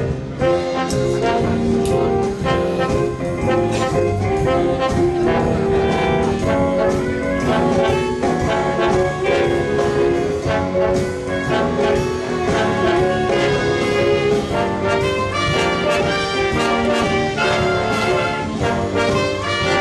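A live church band with a brass section (trumpets, trombones and saxophone) playing an upbeat, jazz-style instrumental arrangement of a gospel tune, with drums keeping a steady beat.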